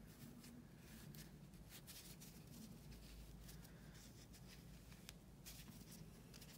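Near silence, with faint irregular rustling of hands pushing stuffing into a small crocheted piece and handling it.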